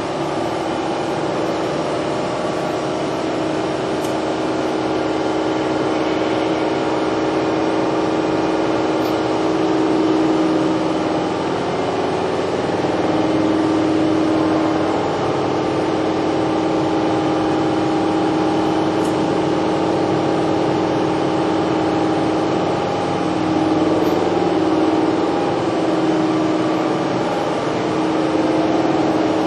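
Steady hum of a powered-up Toshiba MPF-2114C bridge-type vertical machining center, with several held tones over a constant whir.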